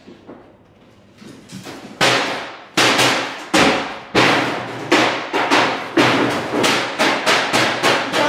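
Shadow-theatre offstage sound effect of the children stomping up the stairs and through the house: a run of loud knocks and thumps. It starts faintly about a second in, turns loud at two seconds, then comes about twice a second, each knock ringing out briefly.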